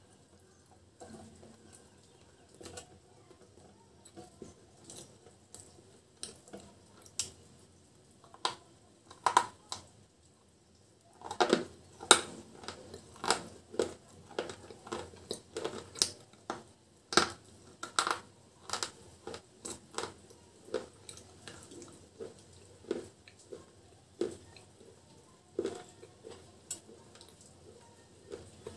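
Crisp crunching bites and chewing of hard white chips, with the chips scraped and tapped against a small clay pot as they are dipped in paste. Sharp irregular crunches, thickest about halfway through.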